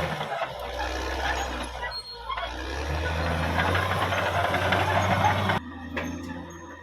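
Caterpillar D6R XL bulldozer running under a steady diesel engine note, with a dense rattling clatter over it. About five and a half seconds in, the sound cuts off abruptly to a quieter engine hum.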